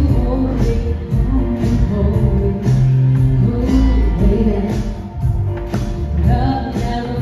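Two women singing into handheld microphones over accompanying music with a steady beat, amplified through a PA.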